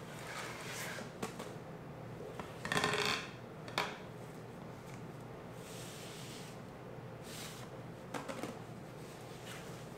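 Hands handling a cardboard mailing tube and rolled photo backdrops: scattered knocks and clicks with bursts of rustling and sliding as the rolls are drawn out. The loudest rustle comes about three seconds in.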